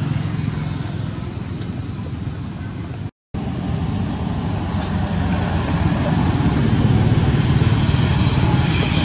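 Steady low outdoor rumble, like distant road traffic, that cuts out completely for a moment about three seconds in and grows a little louder in the second half.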